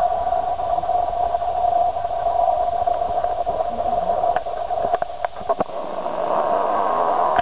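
Steady loud hum with hiss underneath, unchanging throughout. A few short clicks and rustles about halfway through as the fit-test hood is handled.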